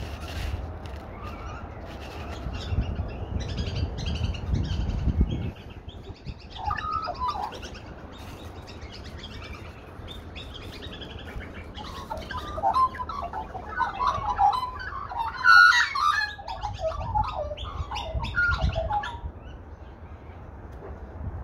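Australian magpies calling: a short burst of calls about six seconds in, then a longer, louder run of varied calls from about twelve seconds in. A low rumble underlies the first five seconds.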